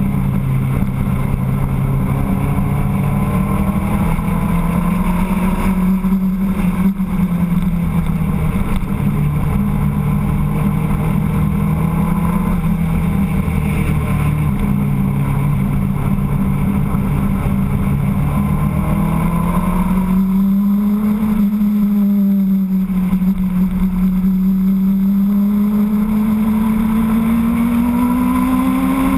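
Motorcycle engine running steadily at cruising speed, heard from on board. Its note wavers with the throttle and climbs about two-thirds of the way through and again near the end, as the rider accelerates.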